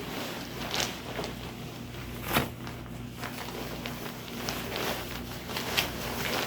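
Fabric rustling and soft knocks of a long winter coat being put on, with a sharper knock about two and a half seconds in.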